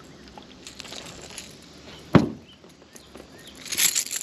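Handling noise as a freshly caught bass is dealt with in a jonboat: scattered small clicks and rustles, one sharp knock about two seconds in, and a short scratchy burst near the end.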